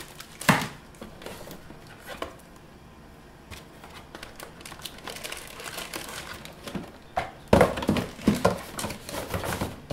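Plastic accessory bags and bubble wrap crinkling and rustling as they are handled and lifted out of a cardboard box. There is one sharp rustle about half a second in, then quieter handling, and louder crinkling near the end.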